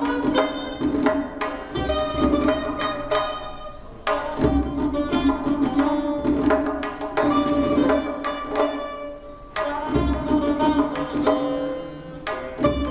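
Persian tar played with a plectrum in quick runs of plucked notes, accompanied by a tombak goblet drum giving deep bass strokes and sharper finger strokes. The playing falls back and comes in strongly again twice, about four and nine and a half seconds in.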